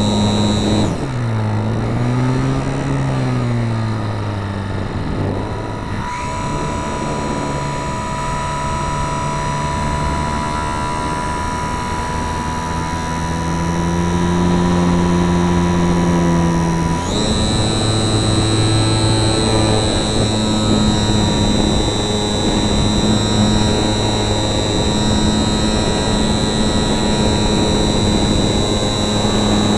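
RC Super Cub model plane's motor and propeller running, with the pitch changing in steps as the throttle is moved: it drops and wavers about a second in, shifts again several times, and a high whine comes back partway through.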